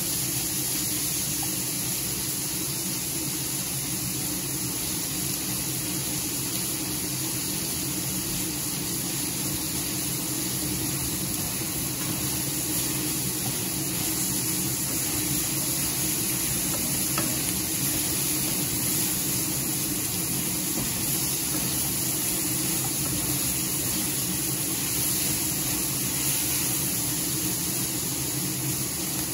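Chicken pieces sizzling as they brown in a stainless steel frying pan, stirred now and then with a wooden spatula. A steady low hum runs underneath.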